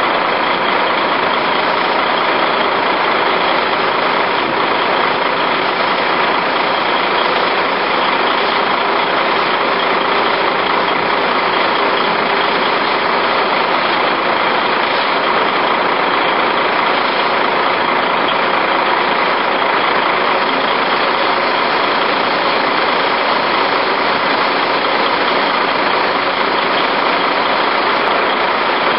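Diesel engine of a Liebherr LTM1400-7.1 mobile crane running at a constant speed, a steady drone with no change in pitch or level.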